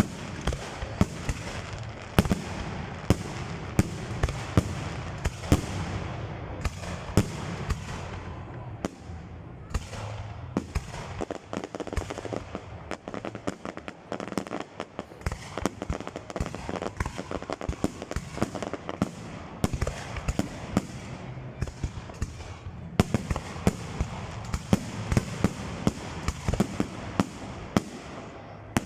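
Fireworks display: aerial shells bursting in quick succession with sharp bangs over continuous crackling, thinning a little midway and growing denser again near the end.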